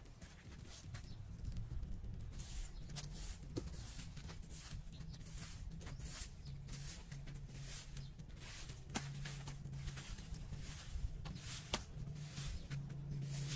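A plastic-bristled broom sweeping grit and leaves on a paved sidewalk: short scratchy strokes, a couple a second, starting about two seconds in.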